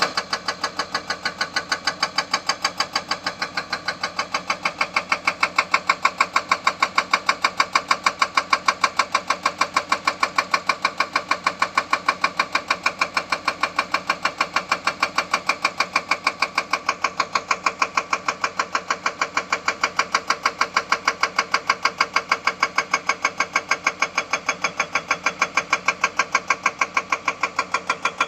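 Excavator-mounted hydraulic breaker hammering rock: a steady, rapid train of sharp blows, several a second, over the excavator's running engine.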